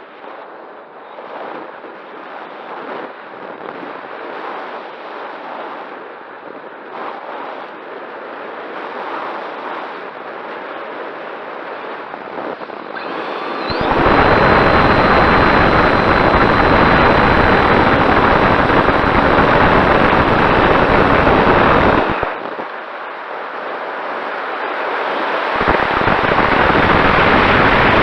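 Wind buffeting the microphone: a steady rush that turns much louder and deeper in gusts, one starting about halfway through and stopping suddenly some eight seconds later, another starting near the end.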